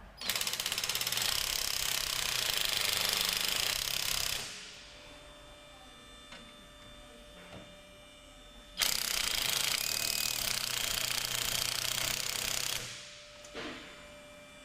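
An impact tool hammering in two long bursts of about four seconds each, a few seconds apart, as it works on the front strut fasteners.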